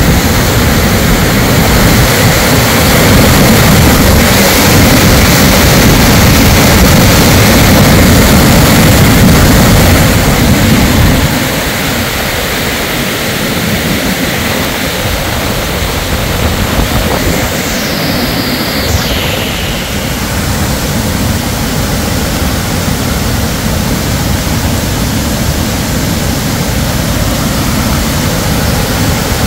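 Muddy floodwater rushing in a torrent down a hillside driveway and over a road, a loud, steady rushing noise of flash-flood runoff. It is heavier and deeper for about the first eleven seconds, then drops somewhat quieter.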